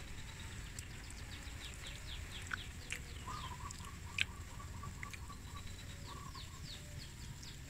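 Faint bird calls: repeated short falling chirps, with a rapid trill about three seconds in, over a low steady background. A single sharp click sounds a little after four seconds.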